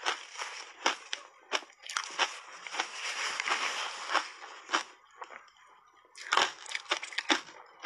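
Crunchy shaved ice coated in matcha powder being chewed: sharp cracks and a dense run of crunching, a quieter lull about five seconds in, then more crunches near the end.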